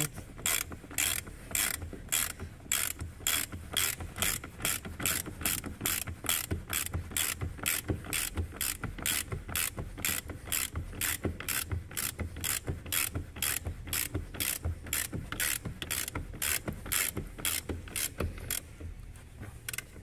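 Hand ratchet wrench tightening a seat-belt pretensioner mounting bolt, worked back and forth in steady strokes of about two a second, each a quick run of clicks. The strokes stop near the end. The bolt is one the owner believes was left loose, setting the pretensioner airbag fault.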